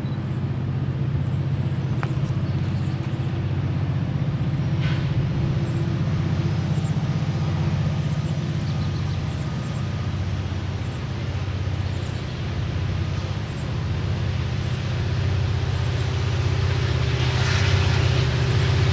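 Diesel locomotive engine running with a steady low hum, getting somewhat louder near the end.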